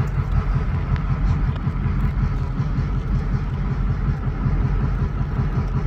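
EMD SD38-2 diesel-electric locomotives running with a steady low engine rumble, their non-turbocharged 16-cylinder 645 engines working.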